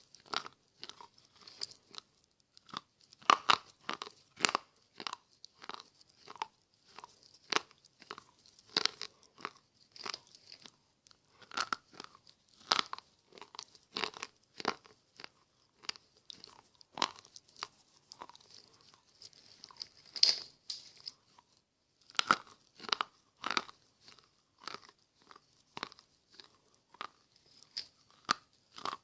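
Slate pencils being bitten and chewed close to the microphone: a run of sharp, dry crunches, about two a second, with a brief pause a little after three-quarters of the way through.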